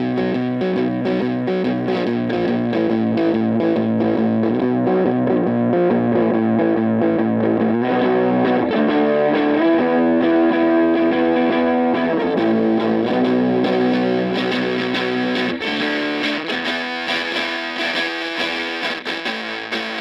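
Electric guitar (a Fender Jazzmaster on its middle pickup position) played through a Bookworm Effects Seths Fuzz pedal into a Silvertone 1472 amp: gritty, heavy fuzz-distorted chords and sustained notes. About three-quarters of the way through, the tone turns thinner and brighter.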